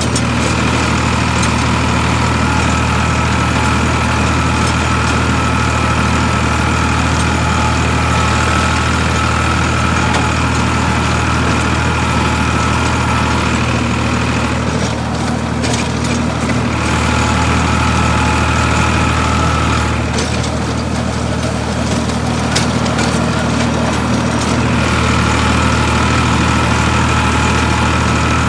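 Farmtrac 60 tractor's three-cylinder diesel engine running steadily while the tractor drives through a field, heard from the driver's seat. A higher whine sits over the engine note and drops out twice, about halfway through and again a little later.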